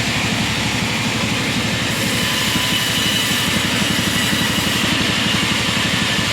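Engine-driven log-cutting saw machine running steadily with a fast, even pulse. A faint high whine joins about two seconds in.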